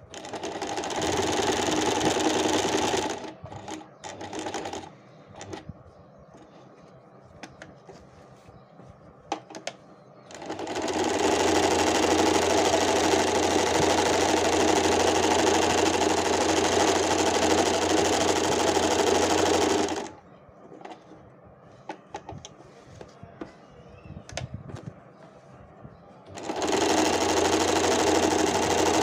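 Usha Stitch Magic electric sewing machine running a dense decorative embroidery stitch, in stop-start spells: a few seconds at the start, a long run from about ten to twenty seconds in, and again from about twenty-six seconds. Between runs the motor is stopped and only faint clicks of the fabric being handled are heard.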